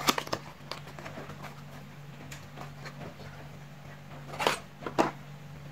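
Paperboard box of an H4 LED headlight bulb being handled and opened by hand: a few light clicks and taps, then two brief scraping rustles near the end as the bulb is slid out.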